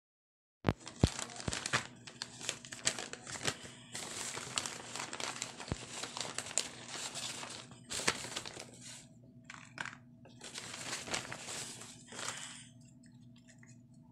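Brown paper bag crinkling and rustling in irregular bursts as it is handled and opened, with a few sharp taps. It goes quiet about a second and a half before the end.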